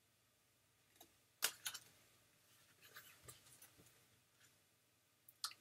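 Faint clicks and light rustles of cardboard flashcards being handled and swapped by hand, the sharpest tap about one and a half seconds in, against near silence.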